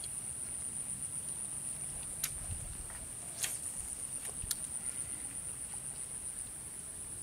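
Insects trilling in a steady, high-pitched, slightly pulsing drone, with a few sharp clicks in the middle.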